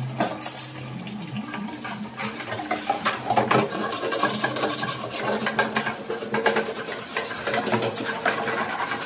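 Tap water running into a stainless-steel kitchen sink while dishes and utensils clatter and knock as they are washed.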